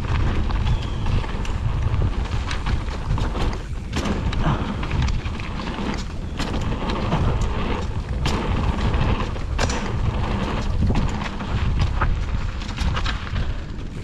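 Mountain bike rolling along a dirt trail, with wind rumbling on the camera microphone. Frequent sharp clicks and knocks come from the tyres and bike rattling over bumps and stones.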